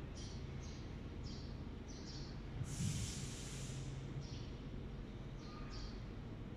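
A milking parlor's machines run with short hissing puffs of air, one or two a second, over a steady low hum. About three seconds in there is one longer, louder hiss.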